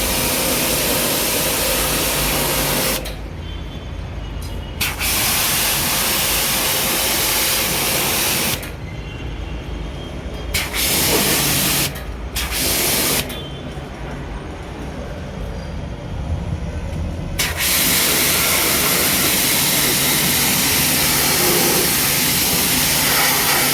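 Pressure-washer water jet hissing as it sprays down an air conditioner during servicing, starting and stopping in several bursts of one to four seconds, with a lower hum in the gaps.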